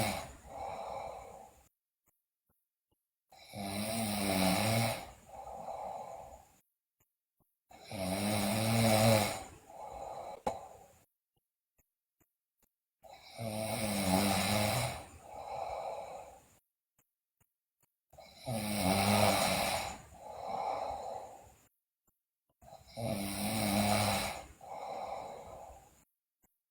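A sleeping girl snoring loudly in a steady breathing rhythm. Each breath is a long, pitched snore followed by a shorter, softer second snore, with a silent pause before the next, repeating about every four and a half seconds.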